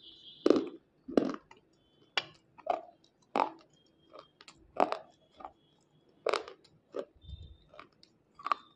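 White unshaped slate pencil being bitten and chewed: a dozen or so short, sharp, dry crunches, spaced unevenly at about one or two a second.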